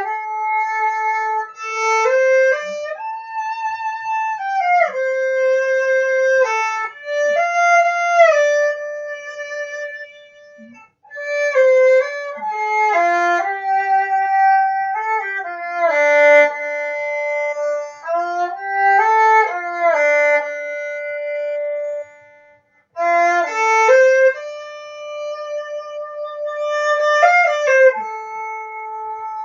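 A bowed string instrument playing a slow melody of long held notes with slides between them, recorded through an MXL 770 condenser microphone and a small mixer, and sounding muffled. Twice, about a third of the way in and again about three quarters through, the sound suddenly drops almost away although the bow stays on the string, the recording fault the player is asking about.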